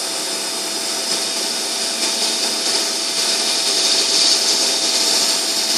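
Emco Compact 5 CNC lathe taking the final finishing cut in 6082-T6 aluminium: a steady hiss of the cut over the whine of the spindle drive, growing a little louder from about two seconds in as a fine ribbon of swarf comes off the tool.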